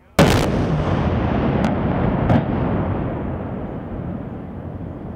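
Explosive demolition charges firing on a steel truss bridge's main span: one sharp, very loud blast, then a long rumble that slowly dies away as the span comes down, with two more sharp cracks about a second and a half and two seconds after the first.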